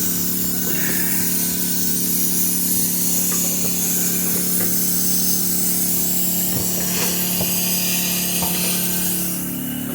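Air compressor running steadily while air hisses through the hose into a riding lawn mower tyre, inflating it; a few light clicks in the middle, and near the end the hiss drops and the motor note changes.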